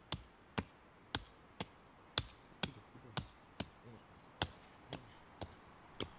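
Short, sharp strikes of a small axe on wood, about two a second in a steady rhythm, with a brief gap near the middle.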